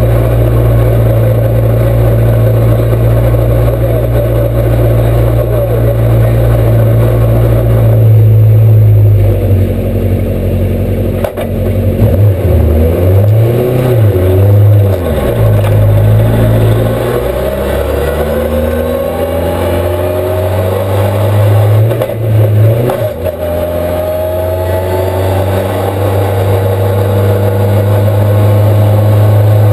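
Ford Escort race car's Millington four-cylinder engine heard from inside the cabin: it idles steadily, is blipped up and down several times about halfway through, then pulls away gently with its pitch rising before settling to a steady note near the end.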